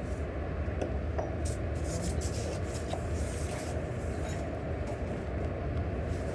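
Steady low mechanical rumble of machinery running, with a few faint clicks and taps over it.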